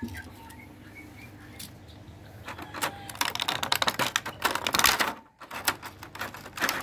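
Thin clear plastic blister tray crackling and clicking in quick, irregular bursts as a small die-cast toy car is pressed and worked in its moulded cavity. The crackling is busiest from about two and a half seconds in, breaks off briefly near five seconds, then starts again.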